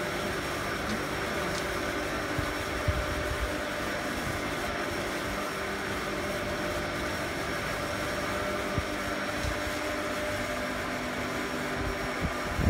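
Boat hoist running steadily with a constant mechanical hum and a few held tones, lowering a Gib'Sea 302 sailboat hanging in its slings into the water.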